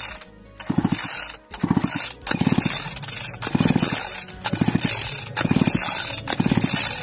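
Two-stroke chainsaw's recoil starter pulled about seven times, roughly once a second, each pull spinning the engine briefly. The spark plug is out and grounded on the cylinder for a spark test, and it is sparking.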